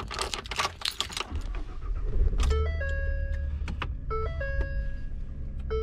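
Keys jangling, then a pickup truck's engine comes on and idles with a low steady hum while a dashboard chime repeats about every second and a half.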